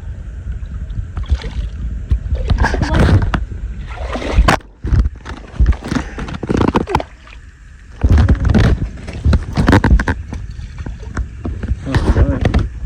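Wind rumbling unevenly on the microphone, with water sloshing and splashing.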